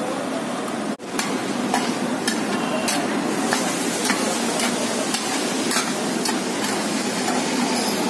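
Omelette frying in a metal pan with a steady sizzle, while a metal spatula taps and scrapes against the pan about twice a second as it is turned and lifted.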